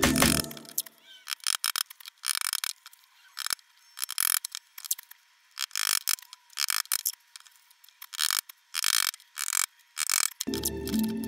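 Claw hammer driving nails into pine boards: several runs of quick, sharp taps with short pauses between them, sounding thin and clicky.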